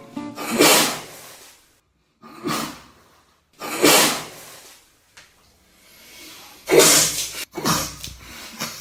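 A man sneezing several times: about five short, loud, breathy bursts one to three seconds apart.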